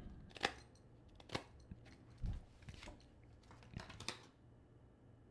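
Faint, scattered taps and clicks, about six of them, from small objects being handled at a desk.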